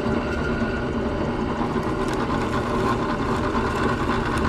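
Drill press motor running steadily, a constant machine hum while the wooden blank is indexed and drilled.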